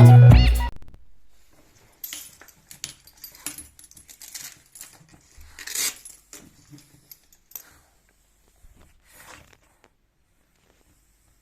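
Music ends within the first second. After that, a French bulldog makes irregular short snuffling and rustling sounds with light metallic jingles as it moves about, the loudest about six seconds in.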